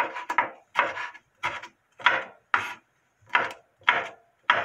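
Kitchen knife slicing a firm, crisp red bell pepper into strips on a bamboo cutting board. About nine short cuts come at roughly two a second, each stroke going through the pepper and meeting the board; the pepper's firmness is what makes the cuts so audible.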